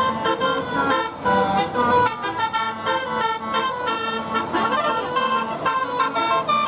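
Bus telolet horn playing a quick melody of short horn notes, the pitch jumping from note to note several times a second.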